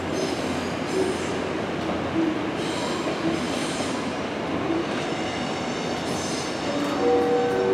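Salon Car Naniwa's 14-series passenger cars rolling away slowly over station pointwork. The wheels rumble and clatter over the switches and rail joints, and the wheel flanges squeal on the curves twice.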